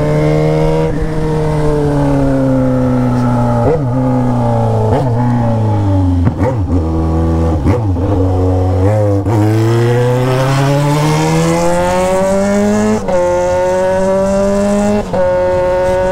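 Yamaha XJ6's 600 cc inline-four running through a straight 3-inch exhaust pipe with no muffler, on the move. The engine note falls in steps as the bike slows through several downshifts, each marked by a brief jump in pitch, then climbs steadily as it accelerates, drops at a shift about three-quarters of the way in and holds steady after.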